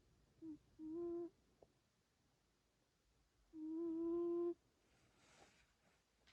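British Shorthair cat snoring in its sleep: pitched, humming snores about three seconds apart, the second about a second long, with a soft breathy exhale between them.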